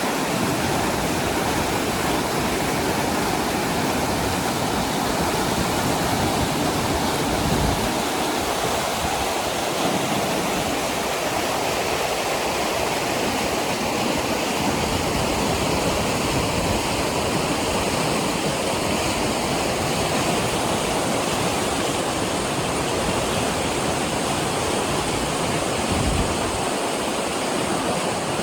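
Glacier-fed mountain river rushing over rocks: a loud, steady roar of white water that holds evenly throughout, with brief low rumbles about eight seconds in and near the end.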